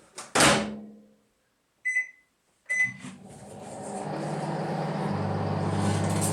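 Microwave oven door shut with a thud, two keypad beeps, then the oven starts and runs with a steady low hum that grows louder.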